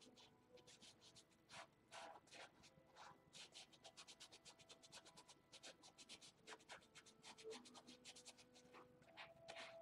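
Fine paintbrush stroking on a canvas: a quick run of many short, faint strokes, several a second.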